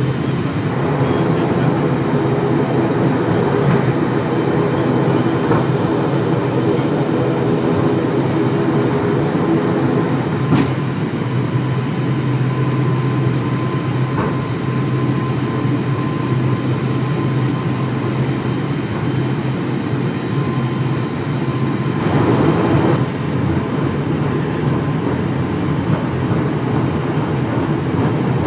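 ATR-72's turboprop engines and propellers running at taxi power, heard from inside the cabin as a steady low drone with a thin, steady whine above it. About twenty-two seconds in, the sound briefly grows louder and rougher.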